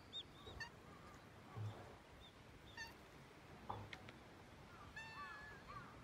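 Faint, short high-pitched cat meows scattered through, several in quick succession near the end, with a few soft low bumps.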